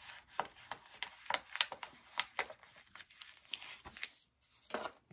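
Transfer tape and its paper backing sheet crinkling and crackling in the hands as a cut vinyl decal is peeled off the backing; a run of irregular crackles that stops shortly before the end.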